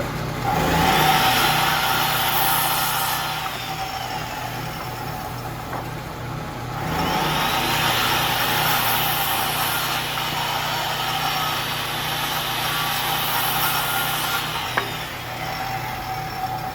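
Power saw cutting wood boards in two long cuts, the motor's pitch rising as each cut starts and falling as it ends, over a steady low hum.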